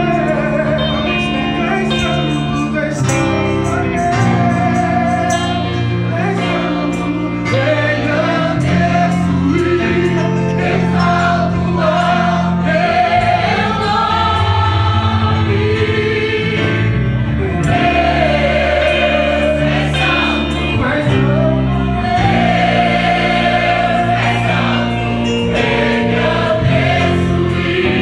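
Gospel choir of mixed men's and women's voices singing, led by a male singer on a microphone, over held low accompanying notes.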